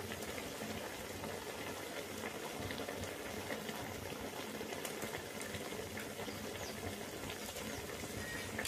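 Mushroom and tomato curry simmering in a wok over a wood fire: a steady bubbling hiss with a few faint ticks.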